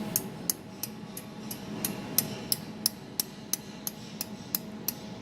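Jewelry laser welding machine firing repeated pulses at a metal board: a sharp click about three times a second, over a steady low hum from the machine.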